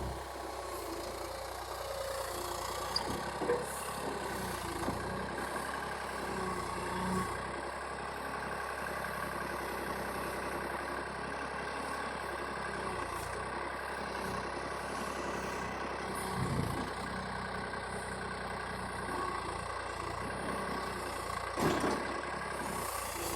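Excavator engine running steadily for the whole stretch, with a few brief knocks over its drone.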